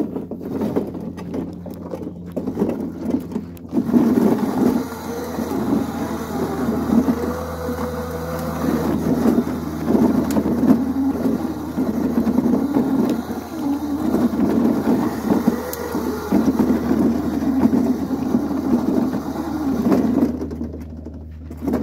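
Razor Crazy Cart's electric drive motor whining, its pitch rising and falling unevenly, growing louder about four seconds in, over a steady low hum.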